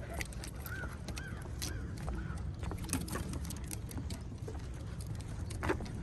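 Footsteps and dogs' paws on a wooden boardwalk: scattered knocks and clicks, one louder knock near the end, over a low rumble of wind on the microphone. Four short rising-and-falling calls come in the first couple of seconds.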